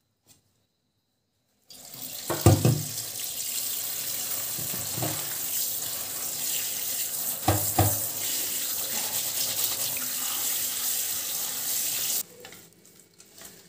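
Tap water running into a kitchen sink as katuk (sweet leaf) leaves are washed, with a few dull knocks of handling. The water comes on about two seconds in and is cut off suddenly near the end.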